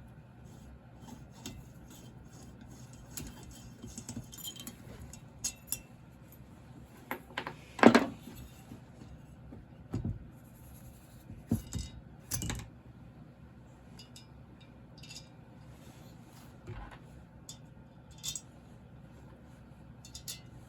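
Scattered metal clinks and knocks of hand tools and parts as a Stihl MS661 chainsaw's cylinder bolts are undone and the cylinder is worked off, with the loudest knock about eight seconds in.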